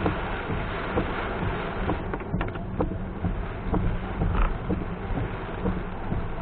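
Heavy rain on a moving car: a steady rush of rain and wet-road noise over a low rumble, with scattered sharp ticks of drops striking.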